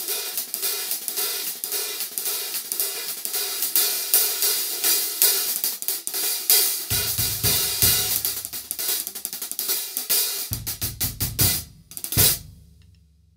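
Agean Beast 14-inch B20 bronze hi-hats played with drumsticks in a fast groove, dry and trashy in tone. Deep drum hits join about halfway through and again near the end, and the playing stops on a last hit, its ring dying away.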